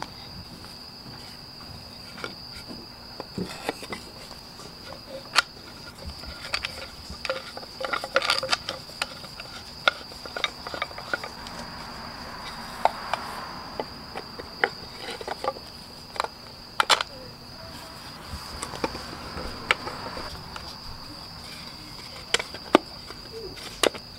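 Wooden parts of a burner stand clicking and knocking as the wooden ring, triangular plate and dowel legs are fitted together by hand, in scattered sharp taps. A steady high chirring of crickets runs underneath.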